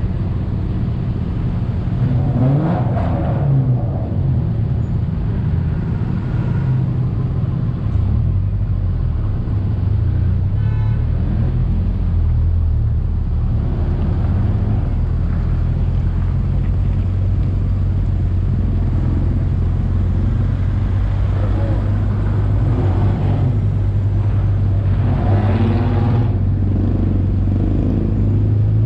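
Off-road vehicle's engine droning steadily on the move, with tyre and road noise underneath.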